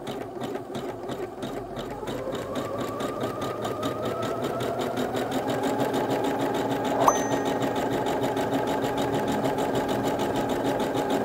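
Singer Heavy Duty 6805 sewing machine stitching a dense zigzag (overlock-type) stitch, with rapid, even needle strokes. It starts at reduced speed, rises in pitch as it speeds up a few seconds in, then runs steadily. There is one sharp click about midway.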